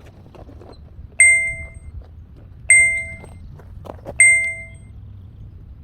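A bright bell-like ding chime sounds three times, evenly about a second and a half apart, each ding short and fading out, over a low steady rumble.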